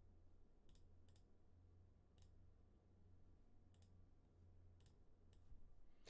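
Near silence with a faint low hum and a handful of quiet, irregularly spaced computer mouse clicks, about seven over six seconds.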